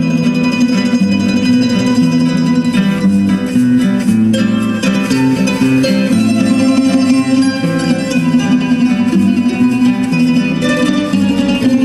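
A Spanish plucked-string ensemble of bandurria, laúd and classical guitar playing an instrumental folk piece together, with the notes changing constantly and no break.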